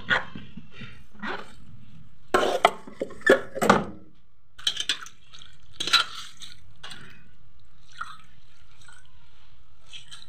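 Inside of a mini display fridge being wiped with a wet cloth: scattered wet rubbing and dripping sounds with short knocks against the fridge's walls, busiest in the first half and dying away after about six seconds.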